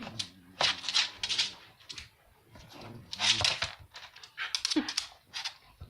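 Jack Russell terrier growling in play with a toy, low growls broken by short, breathy bursts in an irregular rhythm.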